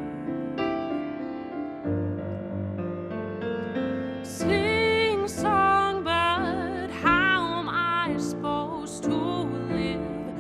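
Piano playing soft sustained chords of an acoustic ballad; about four seconds in, a high voice enters, singing with a wavering vibrato over the piano.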